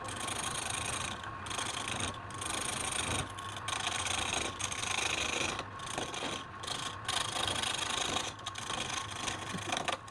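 A tool scraping against wood being turned on a lathe: a steady rasping hiss, broken by short pauses several times.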